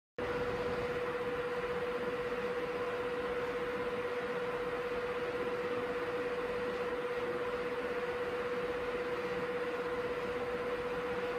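Mini-ITX gaming PC under a full-load stress test: steady fan noise from its cooling fans and flex power supply, with a steady mid-pitched whine on top. The sound cuts in suddenly at the very start.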